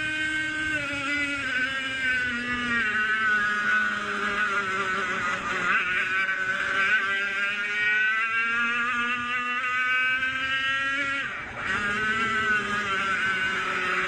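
100cc two-stroke racing kart engine running hard, its high-pitched whine falling and climbing again and again as the revs drop and build through the corners and straights. About three-quarters of the way through the sound dips sharply for a moment, then climbs again.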